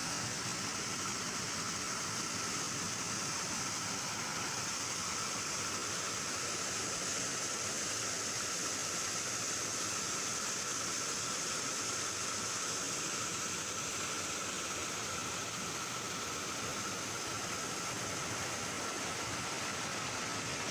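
Small waterfall's water rushing, a steady, even hiss with no breaks, and a faint steady high tone underneath.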